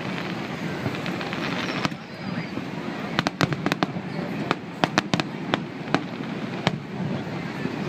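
Fireworks going off: a quick run of about a dozen sharp pops and bangs through the middle, with a few scattered ones earlier, over a steady background rush.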